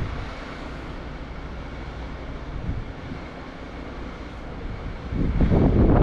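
Wind buffeting the microphone over a steady low rumble, with a stronger gust near the end.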